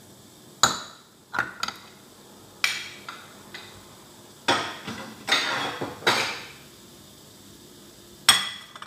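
Kitchenware clattering: a ceramic bowl and utensils knocking against a stainless-steel frying pan and the countertop in about nine separate knocks, a few of them longer and rattling.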